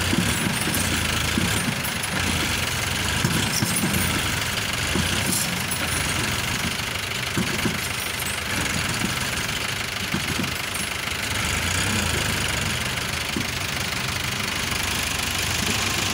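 Farmtrac Champion tractor's diesel engine running steadily while the tractor is bogged in mud with a loaded trailer hitched behind.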